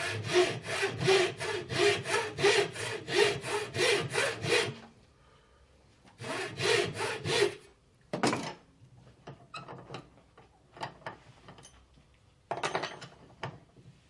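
Traditional wooden frame saw with a thin tensioned blade cutting a small piece of wood held in a vise. It goes in quick push-pull strokes, about four a second, for nearly five seconds. After a pause comes a second short run of strokes, then scattered light taps and knocks, with a brief burst of scraping strokes near the end.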